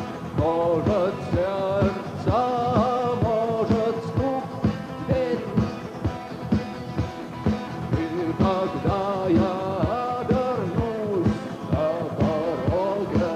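A rock band playing live: a lead melody with bending, wavering pitch over a steady drum beat, with no words.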